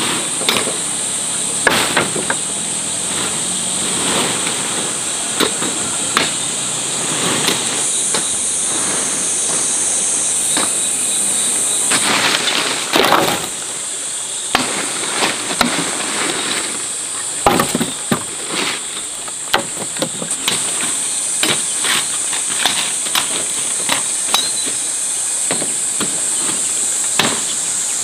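Steady high-pitched insect drone, with irregular knocks and cracks scattered throughout; a denser cluster of louder knocks comes about twelve to thirteen seconds in.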